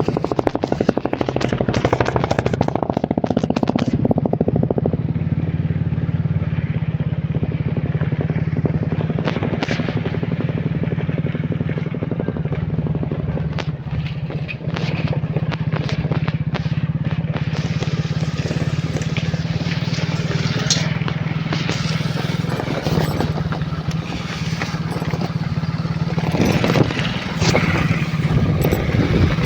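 Motorcycle engine running at a steady pitch while being ridden, over an even rushing noise.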